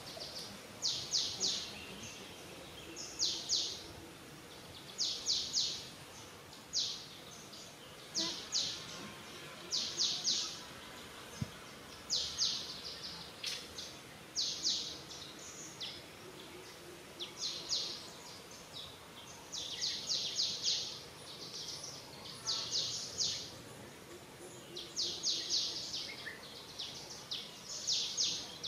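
Small bird chirping over and over, high, quick calls in groups of two to five that repeat every second or two, over a steady outdoor background.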